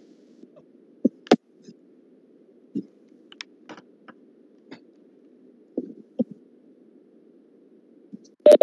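Faint steady low hiss of an open microphone line on a video call, with scattered short clicks and blips and one loud pop near the end.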